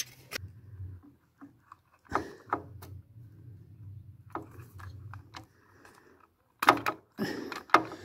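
Hands pulling the push-on wire terminals off a refrigerator compressor's plastic start relay: scattered small plastic and metal clicks and scrapes, with a louder cluster of clicks and rustling near the end as the connector comes off.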